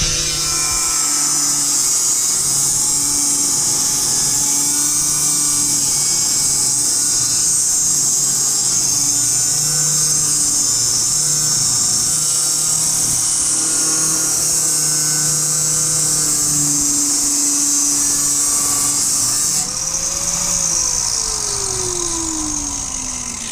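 Grinder cutting into a truck's steel exhaust pipe to remove the broken flex tube section: a loud, steady, high-pitched grinding of metal. About 20 seconds in the tool is let off, and its whine falls as the wheel spins down.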